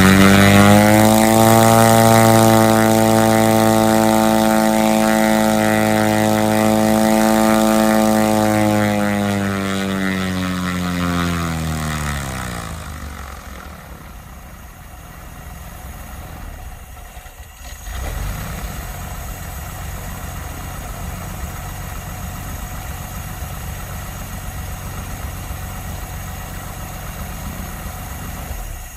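Corvair air-cooled flat-six aircraft engine turning a propeller on a test stand, running at high power with a steady tone. About ten seconds in, the throttle comes back and the pitch and level fall over a few seconds to a low idle. Near 18 s the level steps up again to a rougher, low-pitched running that holds to the end.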